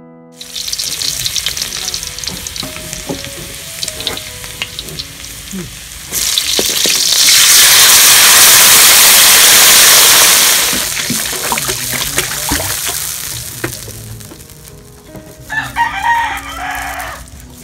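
Hot cooking oil sizzling and crackling in a wok over a wood fire. About six seconds in, chopped tomatoes and garlic hit the oil and it flares into a loud, hissing sizzle for about four seconds, then dies back down to a lighter crackle.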